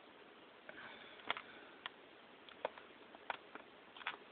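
Faint handling noise of a plastic blister pack being turned in the hand: a few scattered light clicks and crinkles, with a soft sniff about a second in.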